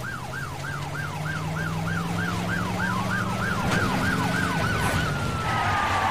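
Police car sirens: a fast yelp cycling about three times a second that stops around five seconds in, joined partway through by a slower wail that rises and then falls, over a steady low drone.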